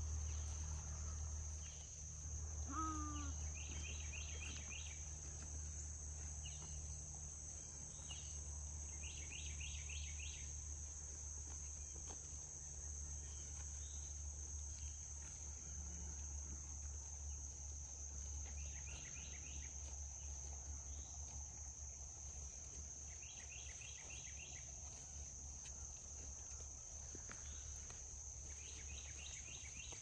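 Steady high-pitched insect chorus in grassy pasture over a faint low rumble, with a bird singing short phrases of rapid repeated notes every few seconds.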